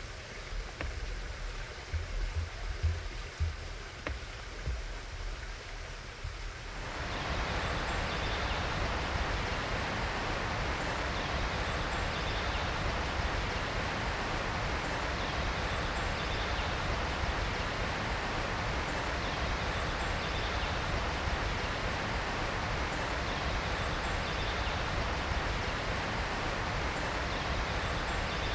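Steady rushing of a flowing stream, coming up suddenly about seven seconds in after a quieter stretch of low rumbling, with faint high chirps repeating above it.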